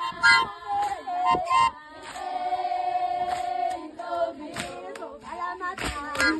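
Music with a group of singing voices, several notes held together in the middle and sharp beats near the end.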